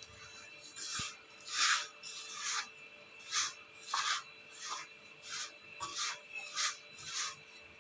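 Hands kneading and rubbing a stiff semolina-and-maida dough for pani puri shells in a bowl, about ten even swishing strokes, one every two-thirds of a second.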